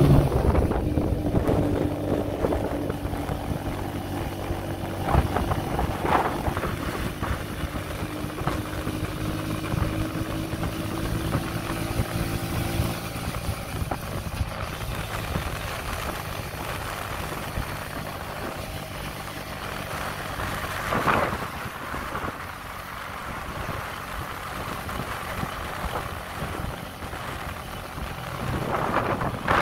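Motorbike engine running steadily while riding, with wind rushing over the microphone. The engine hum rises a little in pitch and fades out about halfway through, leaving mostly wind and road noise, with a couple of brief louder swells later on.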